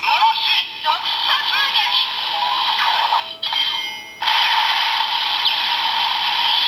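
DX Enkeiken Noroshi toy sword playing its electronic special-attack sound through its small built-in speaker: a synthesized music jingle with a called-out voice line. It drops out briefly about halfway, then the music carries on.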